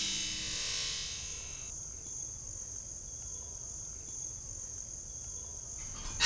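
Crickets chirring steadily in a high, continuous band, while the tail of a synth music cue dies away over the first couple of seconds.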